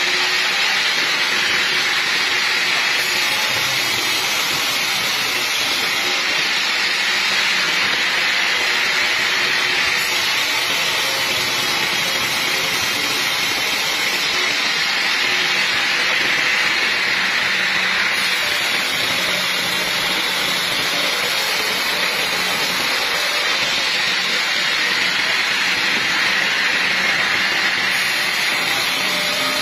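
Vertical band saw blade ripping lengthwise through a large log: a steady, dense hiss of the blade in the wood over the machine's running hum, slowly swelling and easing every several seconds.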